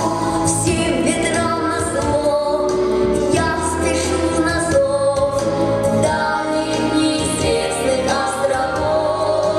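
A child singing a melodic song with instrumental accompaniment.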